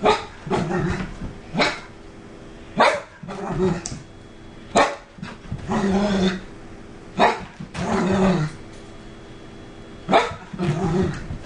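Miniature poodle barking and growling in play: about six sharp barks, each followed by a growl lasting up to a second, in a bout of excited post-walk zoomies.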